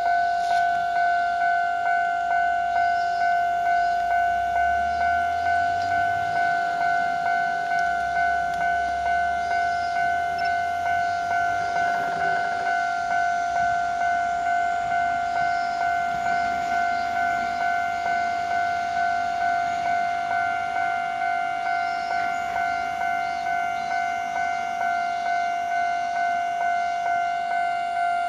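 Japanese level-crossing warning bell ringing: one electronic ding repeated evenly, about one and a half strikes a second, without a break. A faint low rumble comes and goes twice in the first ten seconds.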